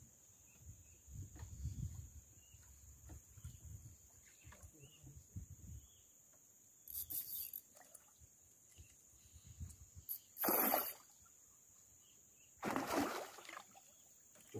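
Water splashing and sloshing around a small boat in three short bursts, the loudest about ten seconds in, after several low knocks and bumps. A steady high whine sits under it throughout.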